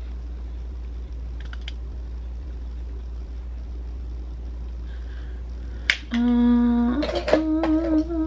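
Steady low hum with a couple of faint clicks, then a woman humming two held notes, the second slightly higher and wavering, for about two seconds near the end.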